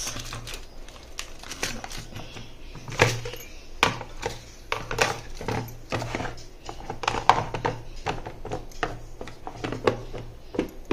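Clicks, taps and knocks of a clip-lock lunch box being packed and closed on a wooden chopping board, a few sharper knocks among many lighter clicks.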